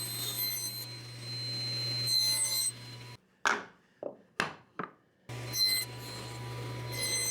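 Four quick strokes of wood being sawn by hand, in the middle of a steady low workshop hum that carries faint high whining tones. The hum drops out abruptly around the strokes and returns just after them.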